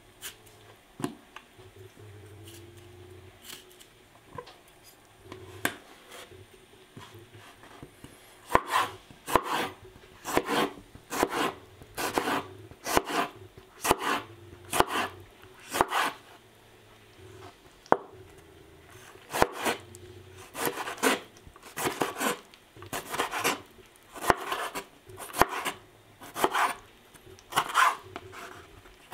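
Knife chopping food on a cutting board. The first several seconds hold only quiet rubbing and a few light taps. From about eight seconds in come steady chopping strokes, roughly two a second, with a short pause a little past the middle.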